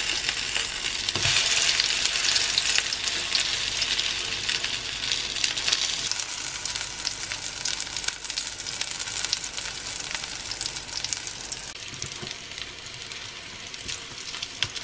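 Corn fritters sizzling and crackling in a shallow layer of hot vegetable oil in a non-stick frying pan, just after being turned once browned underneath, with a spatula touching the pan now and then. The sizzle eases somewhat after about six seconds.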